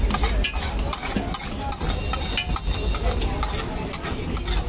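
A flat metal spatula scraping and clacking on a large flat metal griddle (tawa) as pav bhaji is mashed and spread, striking a couple of times a second over a steady sizzle of the cooking bhaji.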